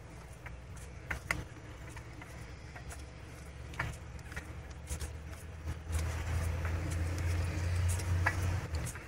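Hand lever-action grease gun being pumped into the grease fitting of a trailer's EZ Lube axle spindle, with a few faint clicks from the lever strokes. Under it a low rumble swells from about six seconds in and drops away just before the end.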